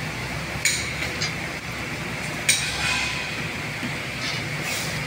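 Metal-on-metal clinks from construction work: two sharp strikes with a short ring, about two seconds apart, with a fainter one between. Steady low background rumble underneath.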